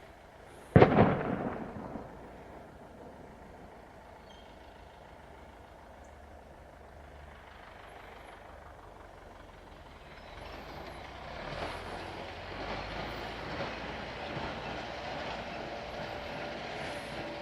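A single sudden loud bang about a second in, then a tractor's diesel engine running, growing louder from about ten seconds in.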